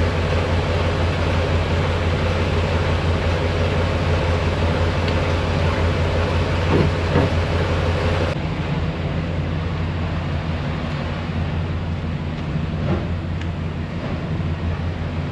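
Semi truck's diesel engine idling steadily close by, a constant low hum. A couple of sharp clicks come about seven seconds in.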